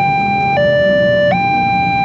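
Electronic warning alarm of an Indonesian railway level crossing, sounding while the red flasher lamps are lit for an approaching train. It alternates steadily between a higher and a lower tone, changing about every three-quarters of a second.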